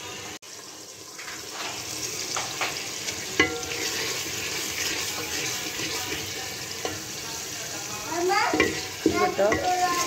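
A wooden spoon stirs and scrapes a thick, oily gourd curry in an aluminium pot as it fries down. It makes a steady wet sizzle, with a few knocks of the spoon against the pot.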